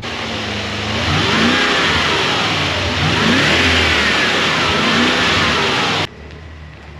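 1992 BMW E32 7 Series engine revving up and falling back several times over a loud rushing noise. The sound cuts off suddenly about six seconds in, leaving a quieter steady engine tone.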